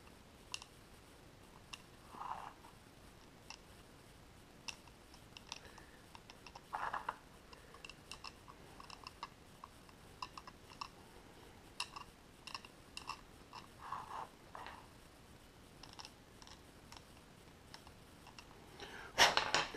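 Small resin and plastic model-kit parts being handled and pressed together by hand: scattered light clicks and taps with a few soft rustles, and a louder rustle near the end.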